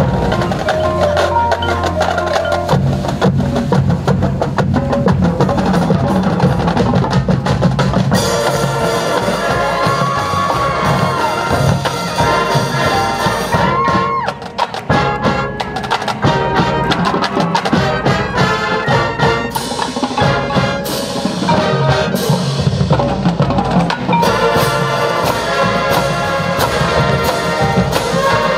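High school marching band playing its field show: brass and wind ensemble over marching drums and front-ensemble mallet percussion and timpani, loud and full, with a brief break about halfway through.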